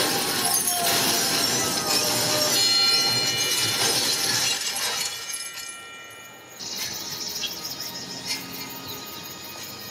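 Action-film soundtrack played through a venue's speakers: crashing and shattering effects over music, loud for the first five seconds, with held high tones sounding through the middle. It drops sharply around six seconds, then comes back quieter.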